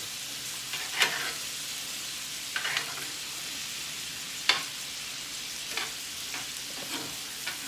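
Shell steaks frying in a pan of butter with garlic and rosemary, a steady sizzle, broken by a few sharp clicks and scrapes of a utensil against the pan as the steaks are basted.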